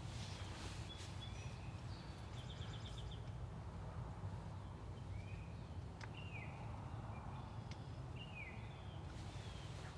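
Small birds chirping in short falling calls, with one quick trill, over a steady low outdoor rumble.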